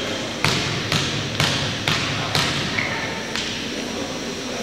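Basketball bounced repeatedly on a hardwood gym floor by a player at the free-throw line before his shot. The bounces are steady, about two a second, echoing in the gym, and stop about three and a half seconds in.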